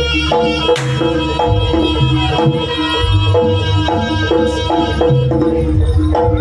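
Javanese jaranan gamelan music played live: kendang hand drums keep a driving rhythm under repeated metallic gong-chime notes. There is a short crash-like stroke about a second in.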